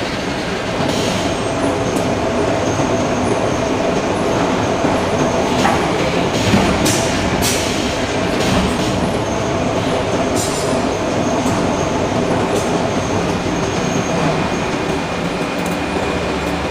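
Forge shop machinery running with a steady, loud mechanical din, with a few sharp knocks scattered through it.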